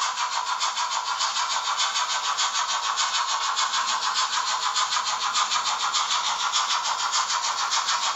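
Sound decoder of a Trix BR 42 steam locomotive model playing steam chuffs through its small loudspeaker: a fast, even beat of hissy chuffs, thin with almost no bass.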